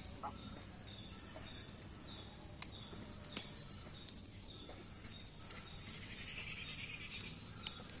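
Faint steady chirring of insects such as crickets, with a few soft clicks around the middle.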